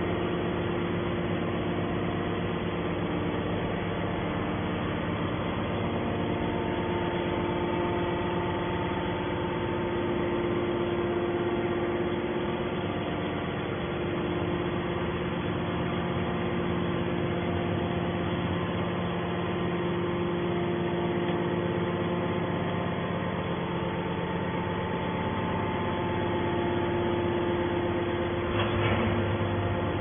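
Hydraulic scrap-metal baler's motor and pump running steadily, a constant hum with several steady tones and no pressing stroke heard.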